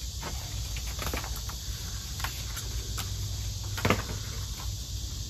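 Scattered sharp clicks and snaps, the loudest about four seconds in, as a banana plant's flower stalk is cut with a small hand tool. A steady insect buzz sits behind them.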